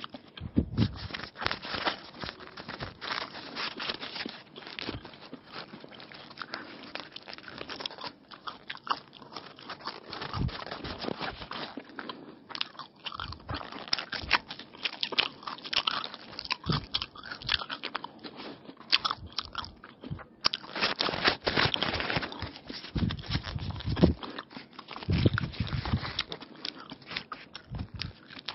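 A person biting into and chewing egg rolls, with steady irregular crunching from the raw cucumber and onion filling.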